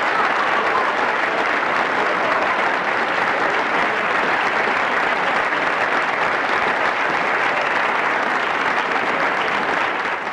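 Audience applause, a dense steady clapping that starts to die away at the very end.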